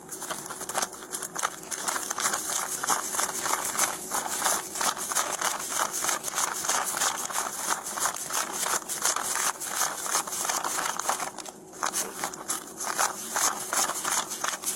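Paper banknotes being counted and flicked by hand: rapid, irregular crisp rustling and snapping of bills, with a short pause about twelve seconds in.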